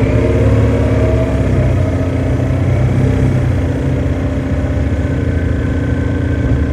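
2009 Orion VII Next Generation hybrid bus running, its drivetrain hum holding fairly steady in several tones. A thin high whine joins about five seconds in.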